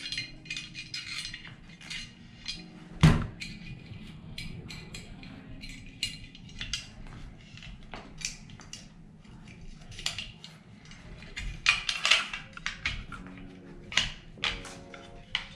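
Clicks, taps and knocks of a gel blaster's metal gearbox being handled and fitted into the metal lower receiver, with one loud knock about three seconds in.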